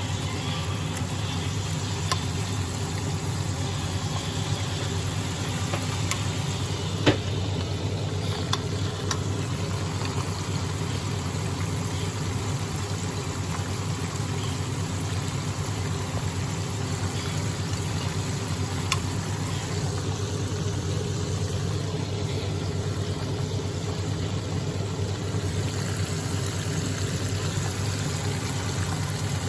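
Chicken karaage deep-frying in hot oil: a steady bubbling sizzle over a low steady hum, with a few sharp pops, the loudest about seven seconds in.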